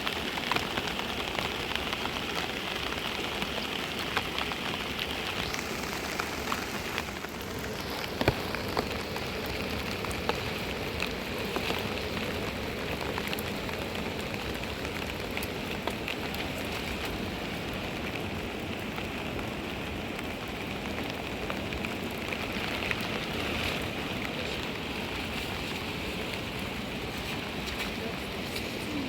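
Steady rain falling, a constant hiss made of many small drop impacts, with one sharper tap about eight seconds in.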